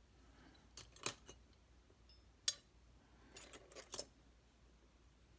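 Light metallic clicks and clinks of lock-picking tools being handled and swapped, a few sharp separate ticks followed by a short cluster of small clinks.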